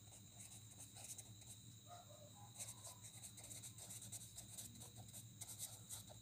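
Faint scratching of a pen writing on paper: many short, quick strokes, busier from about two and a half seconds in.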